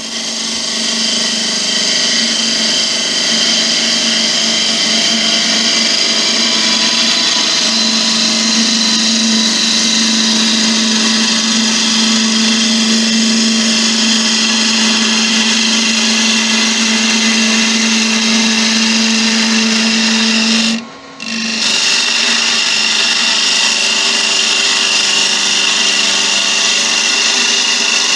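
Laguna 1836 wood lathe running with a steady hum while a turning tool cuts the outside of a spinning spalted beech blank, giving a steady hiss of shavings. The sound breaks off for a moment about three-quarters of the way through, then carries on.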